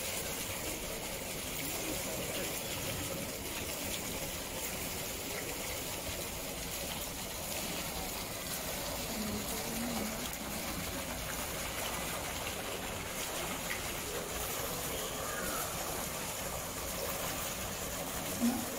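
Steady rush of running water, with faint voices in the background.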